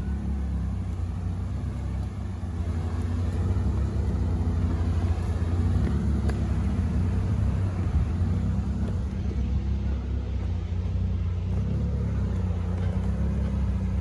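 Niva 4x4 engine running low and steady as it crawls over a rutted forest track in low gear, a continuous rumble that picks up slightly a few seconds in.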